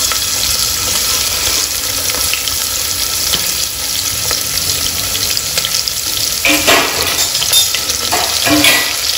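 Chopped shallots and onions sizzling in hot oil with whole spices in a pressure cooker, being stirred. A spoon scrapes and knocks against the pot a few times in the second half.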